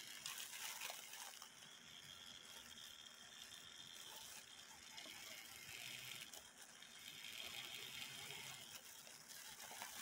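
Faint rustling and handling noise: thin plastic gloves crinkling as they turn a brass clock movement, over a low hiss.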